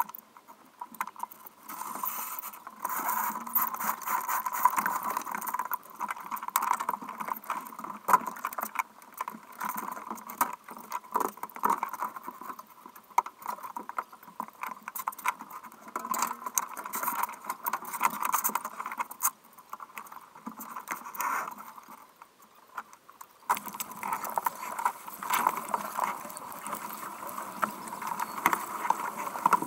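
Ridas 26 sailboat being sailed: sail cloth flapping and lines, blocks and fittings knocking and rattling as the crew handle the sail, in gusts. About three-quarters of the way through it turns into a steadier rush of wind and water along the hull as the boat heels and sails.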